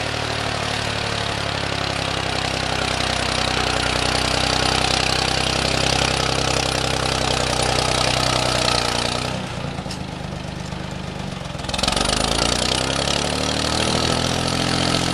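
Engine running steadily with a broad hiss over it. It eases off about nine seconds in and picks up again about two and a half seconds later.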